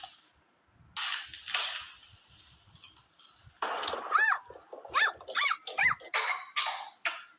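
A dog giving four short, high whimpering yips that rise and fall, between about four and six seconds in, among scattered noisy bursts.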